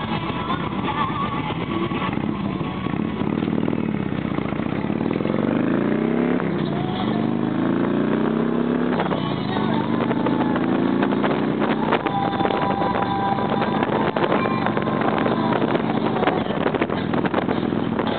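Harley-Davidson touring motorcycle's V-twin engine pulling away and accelerating up through the gears: the pitch climbs three times, dropping back at each gear change, then settles to a steady cruise.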